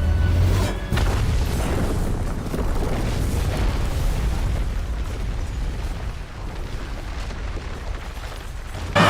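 A film explosion: a sharp boom about a second in, followed by a long, noisy rumble that slowly dies away over several seconds.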